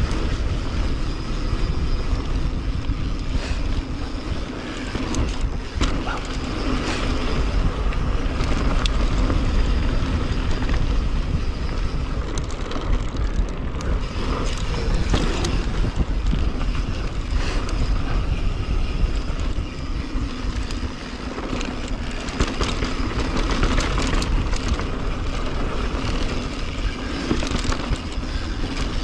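Wind buffeting the on-bike camera's microphone as a YT mountain bike rolls fast down a dirt trail, with tyre noise and short rattles of the bike over bumps.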